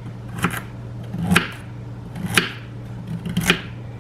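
A knife slicing through raw peeled sweet potatoes and striking a cutting board: four cuts about a second apart.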